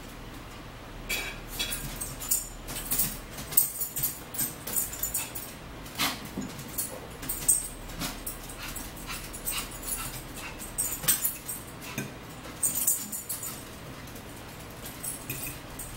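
Eating sounds: metal forks clicking and scraping on plates in short, irregular taps, with chewing close to the microphone.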